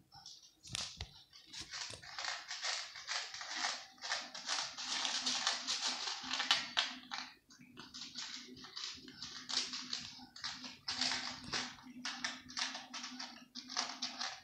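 Cats chewing dry kibble, dense runs of crisp crunches with short pauses between mouthfuls. A steady low hum joins about four seconds in.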